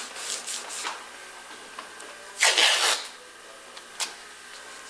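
Masking tape being pulled and pressed along a car's door pillar: soft rustling and rubbing, with one loud rasping rip of about half a second midway.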